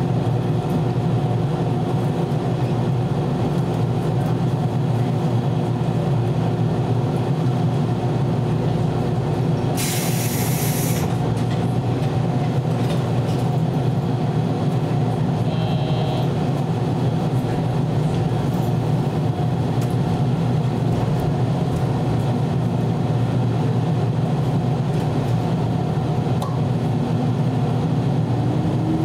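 413-series electric multiple unit heard from its front motor car, a steady low running hum with fixed tones over it. A short burst of hiss comes about ten seconds in, and a rising whine begins near the end.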